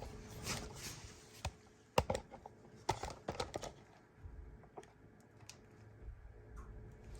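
Irregular light clicks and taps of tools and parts being handled, the sharpest about two and three seconds in.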